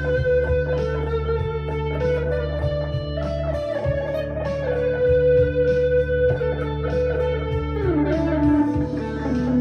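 Harley Benton CST-24T P90 electric guitar played through a Harley Benton Plexicon overdrive pedal and a Blackstar HT-1R amp: a picked lead line of held notes, with one note sliding down in pitch about eight seconds in and ringing on lower.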